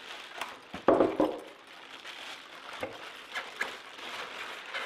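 Clear plastic packing bag crinkling and rustling as it is handled, with a few short clicks and knocks from the packaging, the loudest about a second in.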